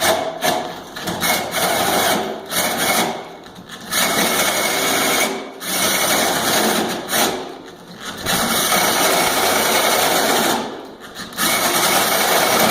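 Power drill with a hole saw cutting the new knob hole into an interior door, run in about six spurts of one to two and a half seconds with short pauses between.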